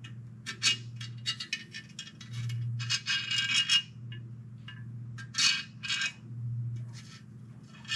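Shattered gear chunks and small steel transmission parts clinking and scraping as they are picked out of a transmission case by hand, in irregular clusters of sharp, ringing clinks: the debris of stripped gears. A low, steady hum runs underneath.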